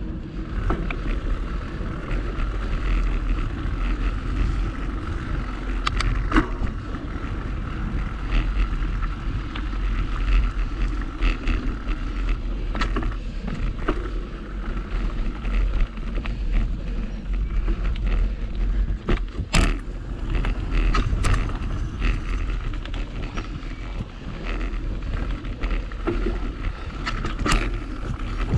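Mountain bike ridden along a dirt singletrack: tyres rolling over the dirt and the bike rattling and knocking over roots and bumps, with a steady wind rumble on the microphone.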